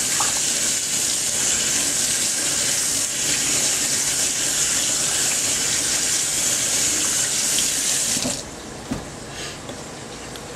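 Kitchen tap running in a steady stream, turned off abruptly about eight seconds in.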